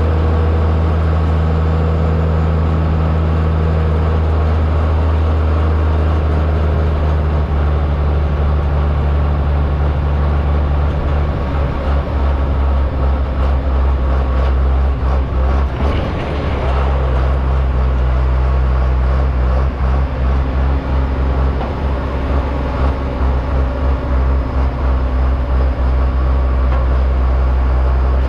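1973 John Deere 4430 tractor's six-cylinder turbo diesel engine running steadily under load while pulling a full grain trailer. About sixteen seconds in the engine note roughens briefly, then settles a little lower.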